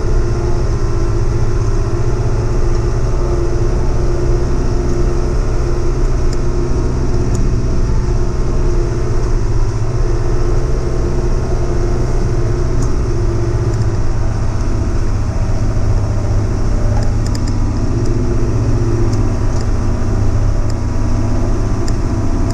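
Heavy-equipment engine running steadily, with a few faint metallic clinks.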